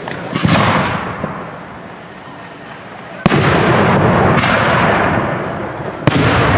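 Aerial firework shells bursting: a softer burst with a fading crackle about half a second in, then sharp bangs at about three, four and a half and six seconds, each followed by a long rolling echo.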